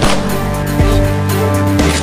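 Background film-score music with sustained low notes.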